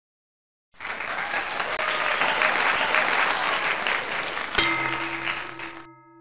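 Audience applause starts suddenly under a second in and carries on steadily. About four and a half seconds in a single held musical chord sounds, and the applause stops soon after while the chord fades.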